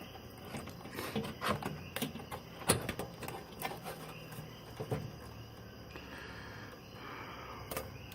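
Graphics card being pushed into the motherboard's PCIe slot: a run of clicks and knocks of plastic and metal parts being handled, the sharpest a little under three seconds in.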